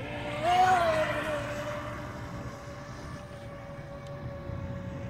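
FT012 RC speedboat's brushless motor running with a steady high whine. About half a second in the pitch rises briefly with a louder rush of noise, then falls back and holds steady.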